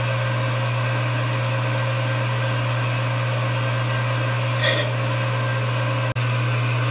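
JET 9x20 benchtop metal lathe running at a steady speed, with a strong low motor hum, while a twist drill bores into the end of spinning brass bar stock. A brief high squeal from the cut comes about two-thirds of the way through, and the sound cuts out for an instant near the end.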